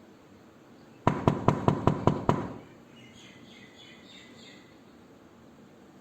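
Rapid knocking on a door: seven quick, sharp knocks in just over a second, each with a short ring.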